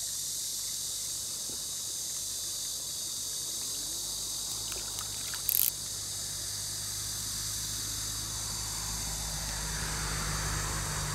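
Steady high-pitched chorus of insects, with a low steady hum underneath and one brief sharp click about halfway through. Near the end a splashing rises as a hooked bluegill is pulled from the water.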